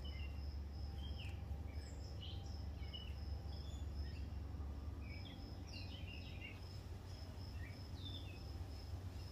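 Outdoor garden ambience: birds chirping in short, scattered calls that fall in pitch, and an insect chirping in an even, high pulse about twice a second, over a low steady rumble.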